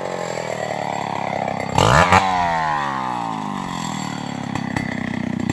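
Stihl 070 two-stroke chainsaw engine revving. Its pitch falls away, surges sharply once about two seconds in, falls again, and then settles into a lower, uneven running near the end.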